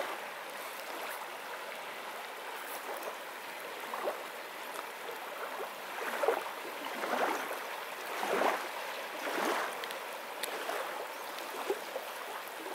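Shallow water of a glacial lake lapping and gurgling at a silty shore, a steady wash with irregular small splashes that come stronger and closer together midway through.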